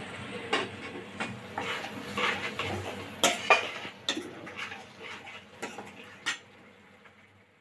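Steel spoon stirring and scraping thick masala frying in a pan, with irregular clinks and knocks of the spoon against the pan. The sound fades out near the end.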